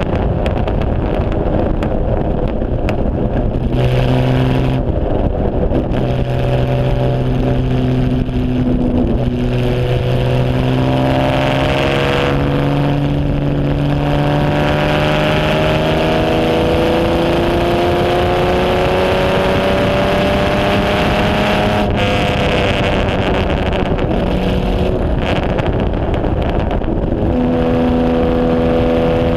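Jaguar straight-six of a 1950s HW Alta-Jaguar racing car heard from its open cockpit. The revs rise and fall through gear changes, then climb in one long pull and drop sharply about three quarters in. Wind rushes over the open cockpit throughout.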